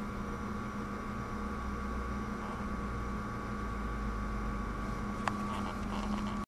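Steady mechanical hum with a faint hiss, holding a few fixed tones, and a single sharp click about five seconds in.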